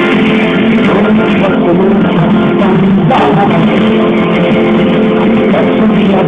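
A live rock band playing, loud and steady, with guitars prominent in the mix.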